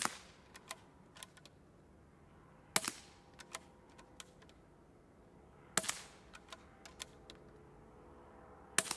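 Suppressed .22 LR bolt-action rifle (Ruger Precision Rimfire with an AB Suppressors MELB-P integral suppressor) firing four shots about three seconds apart, heard from a bystander's position. Each shot is followed by a few light clicks as the bolt is worked.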